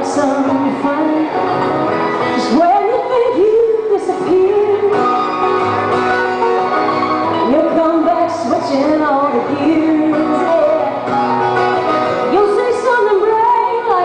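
A woman singing a folk song live to strummed acoustic guitar.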